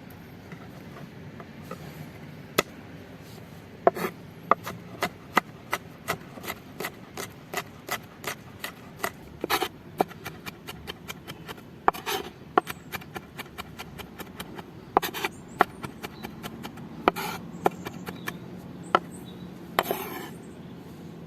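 Knife chopping on a wooden cutting board: a run of sharp taps, about two to three a second, with a few longer scrapes of the blade.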